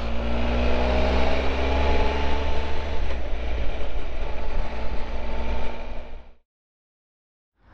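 Triumph Tiger 1200's three-cylinder engine running steadily at cruising speed, heard over wind rumble from a camera on the moving motorcycle. The sound fades out about six seconds in and gives way to a second of dead silence.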